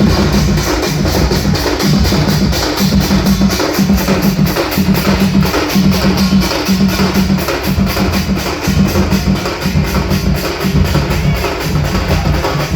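Loud music with a fast, steady drum beat: repeating deep bass pulses under quick, sharp percussion clicks.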